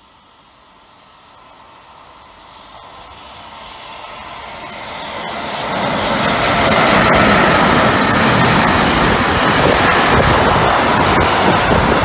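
A train approaching and passing through the station at speed. It grows steadily louder over about six seconds, then becomes a loud, steady rush of wheels on rails with rapid clatter.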